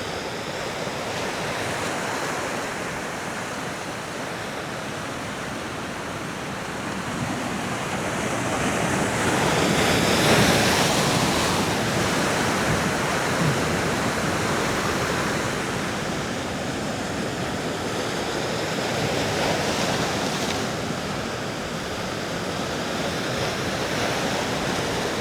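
Heavy ocean swell surging and breaking against rocks, a steady wash of surf that builds to a bigger surge about ten seconds in. Wind buffets the microphone.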